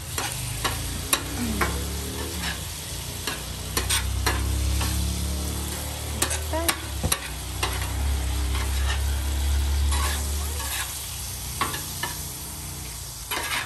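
Chicken pieces sizzling in teriyaki sauce on a flat-top griddle, with a metal spatula scraping and clacking against the steel plate every second or so. A low rumble runs beneath it and stops near the end.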